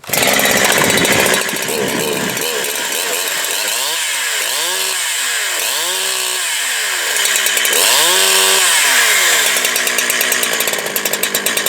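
Holzfforma G372 two-stroke chainsaw starting on a hot restart and running, revved up and back down three times. It fires easily, which shows a sound low-speed carburettor tune without air leaks.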